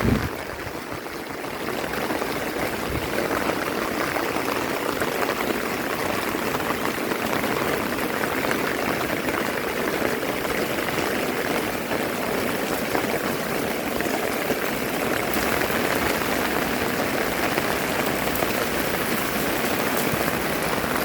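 Steady rain falling, an even hiss of water with no let-up.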